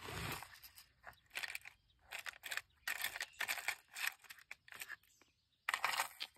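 Fishing lures and their treble hooks clicking and rattling in the compartments of a clear plastic tackle box as a hand rummages through them, in short irregular bursts with brief pauses.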